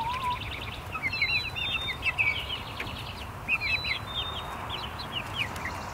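Backyard chickens calling in many short, high peeps and chirps, young chicks among adult hens and a rooster.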